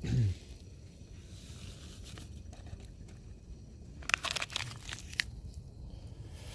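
A cluster of short crinkling, crackling clicks about four to five seconds in, over a low steady rumble: camp kit being handled while a brew is put on.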